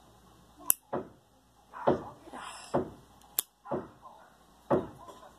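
Metal Zippo lighter being handled, its hinged lid clicking and clacking open and shut, about seven sharp clicks and knocks spread irregularly, two of them especially crisp.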